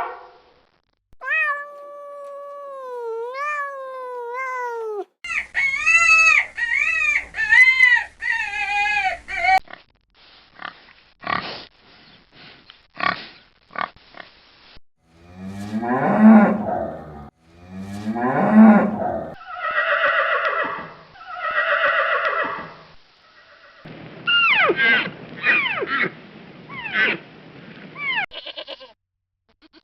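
Farm animal calls played one after another: several different animals in turn, each giving a few repeated calls with short gaps between the animals.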